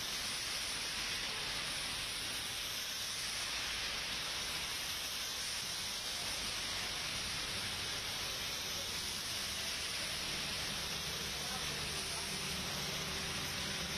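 Heavy rain pouring steadily onto a wet road, an even hiss. A vehicle engine's low hum joins in near the end.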